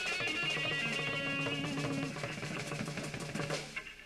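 A band playing rock music with electric guitar and a drum kit, the music dying away near the end.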